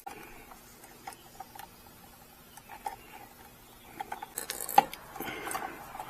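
Small clicks and light rustling of stripped wire ends being worked into a crimp connector by hand, with a sharper click just before the five-second mark.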